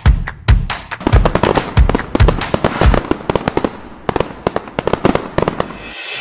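Fireworks going off: a rapid, dense string of bangs and crackling pops that cuts off abruptly near the end.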